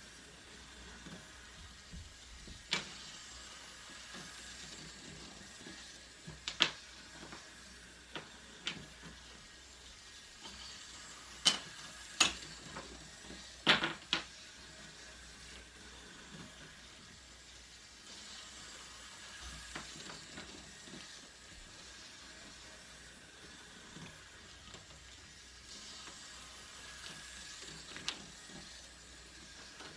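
Light, scattered clicks and taps of dominoes and toy bricks being set down on a toy train track, a few sharp ones close together about halfway through, over a faint steady hiss.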